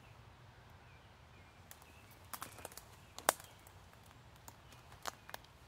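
Footsteps through forest undergrowth: scattered crackles and snaps of twigs and dry leaves, the sharpest snap about halfway through, over a faint low rumble with a few faint bird chirps.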